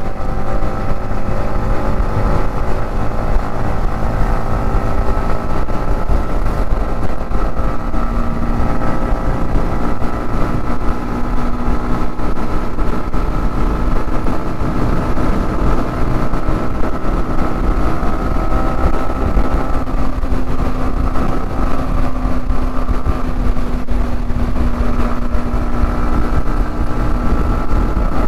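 Motorcycle engine running steadily while riding, its note drifting slowly up and down, dropping about two-thirds of the way through and climbing back a few seconds later, over a heavy low rumble.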